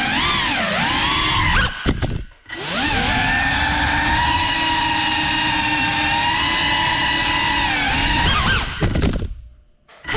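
GEPRC CineLog 35 cinewhoop FPV drone's motors and ducted propellers whining, the pitch rising and falling with the throttle. Twice, at about two seconds and again near the end, a few knocks come and the motor sound cuts out almost to silence before starting up again.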